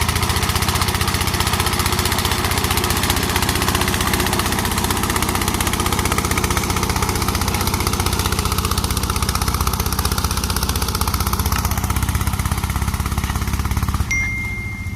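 Engine of a rice-cutting machine running steadily with a rapid, even putter. Near the end the engine noise drops away and a thin steady high tone sounds.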